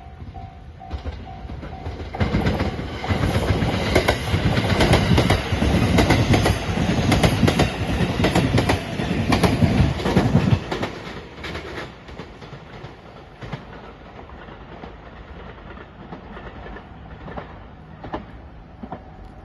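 Train passing over a level crossing, its wheels clacking rapidly over the rail joints. It comes up loud about two seconds in and fades away after about eleven seconds.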